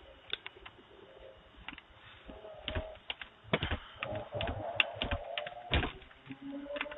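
Irregular sharp clicks and light knocks, a few close together and louder in the middle, picked up by a doorbell camera's microphone.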